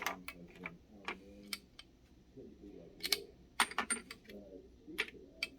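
Scattered metallic clicks and clinks of hand tools and bicycle parts being worked on at a repair stand, coming at irregular intervals, with a sharp click right at the start.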